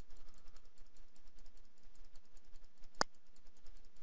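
Computer mouse clicking: a run of faint clicks, with one louder sharp click about three seconds in.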